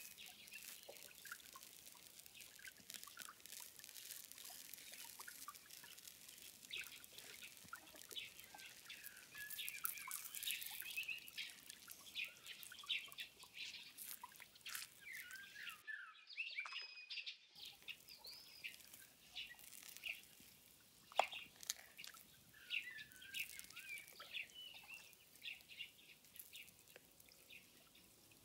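Faint chirping of small birds, many short quick calls throughout, with a few light clicks and taps. The sound cuts out completely for about a second and a half around the middle.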